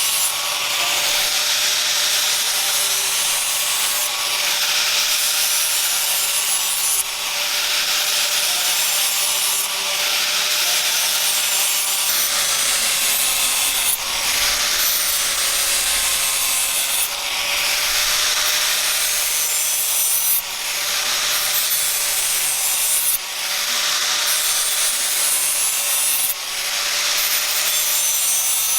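Abrasive rubbing on a steel knife blade, as in sanding or sharpening, in repeated long passes that each last about two to three seconds.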